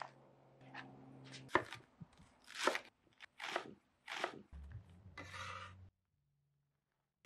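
Knife slicing scallions on a wooden cutting board: about five separate cuts roughly a second apart, the last one a longer stroke, after which it stops.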